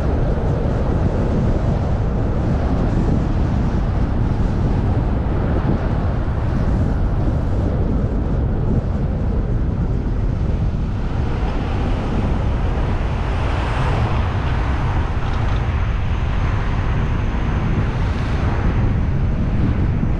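Car driving along city streets: a steady low rumble of road and wind noise, with louder rushing swells about two-thirds of the way through and again near the end.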